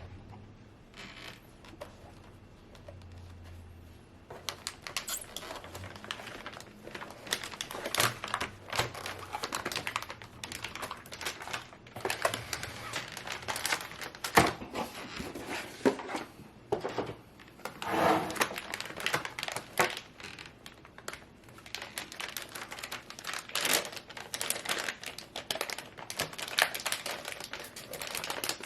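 Packaging being handled by hand: plastic crinkling and rustling with scattered clicks and taps, picking up about five seconds in.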